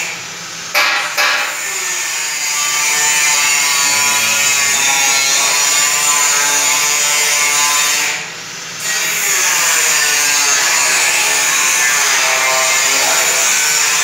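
Steady, loud hissing machine noise, with two sharp clicks about a second in and a short dip about eight seconds in.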